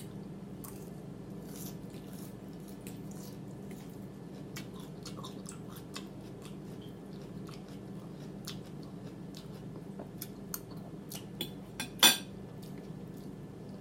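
A person chewing food close to the microphone, with lip-smacking: a steady scatter of small wet clicks, and one much louder click about twelve seconds in.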